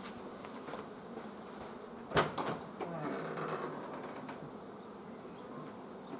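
Honey bees buzzing around an open hive, with one sharp knock about two seconds in.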